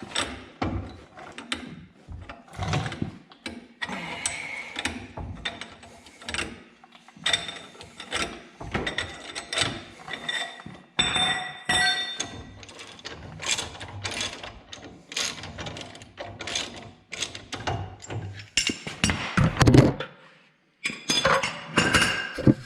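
A ball joint press being worked with hand tools to push a press-in ball joint into a pickup's front steering knuckle: irregular ratchet clicks and metal-on-metal clanks, with a brief pause near the end.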